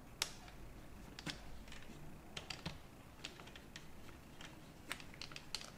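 Faint, irregular small plastic clicks and taps as fingers turn the dial of a screen-protector glue bottle closed on its plastic bridge and jig.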